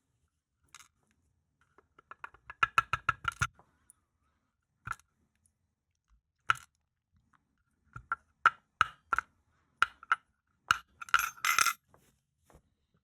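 Small metal lock parts clinking and tapping together as a disassembled pin-tumbler lock is handled. The sharp ringing clicks come in a quick run about two seconds in, then as scattered single clicks, and bunch together again near the end.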